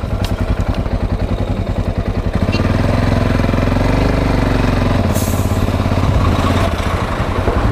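Yamaha XT660Z Ténéré's single-cylinder engine running at low speed on gravel, while an oncoming tipper truck's diesel engine grows louder as it approaches and passes close alongside. A brief hiss comes about five seconds in.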